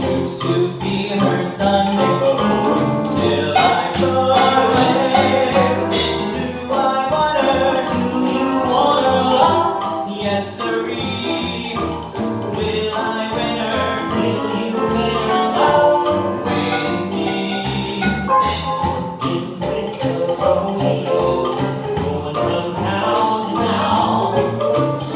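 A song with singing voices over instrumental accompaniment and a steady percussive beat.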